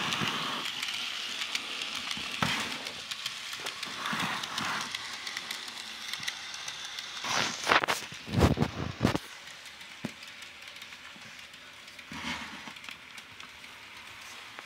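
Bachmann N-scale model train running on its track: a steady high hiss with many light clicks, and a few louder knocks about eight seconds in.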